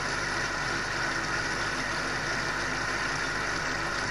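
Steady background hiss with a low hum, unchanging throughout.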